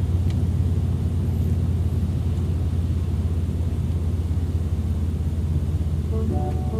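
Steady low rumble of a car driving over a rough unpaved road, heard from inside the cabin.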